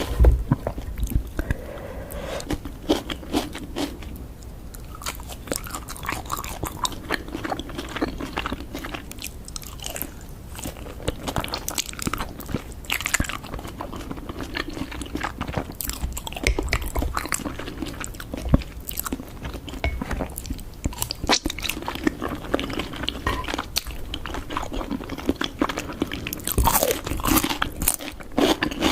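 Close-miked eating: raw scallop sashimi being bitten and chewed, a dense run of small clicks and mouth noises.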